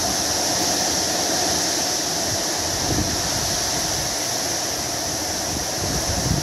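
Torrential rain pouring in a steady hiss during a severe thunderstorm, with strong wind gusts buffeting the microphone about halfway through and again near the end.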